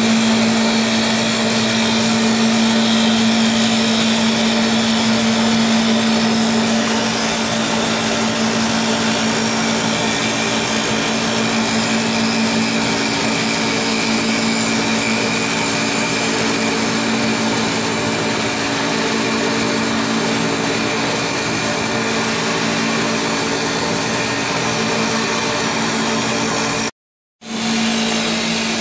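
Two-spindle CNC wood lathe running, its knives cutting two spinning wooden walking-stick blanks at once: a steady machine hum with one strong low tone under a dense hiss of cutting. The sound drops out for a moment near the end and comes straight back.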